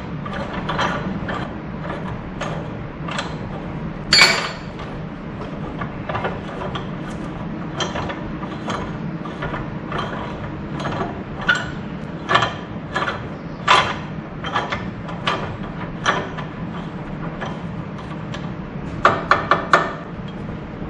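Frozen tractor three-point-hitch top link, oiled and clamped in a bench vise, being worked by hand: its metal tube and threads click and clank irregularly as the seized joint is forced to move. There is a louder clack about four seconds in and a quick run of four sharp knocks near the end.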